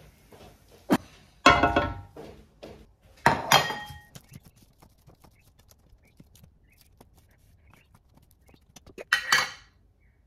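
Kitchenware clattering: several sharp metal clanks with a brief ringing in the first few seconds, then light ticks and scrapes of cutlery on a ceramic plate, and another loud clatter near the end.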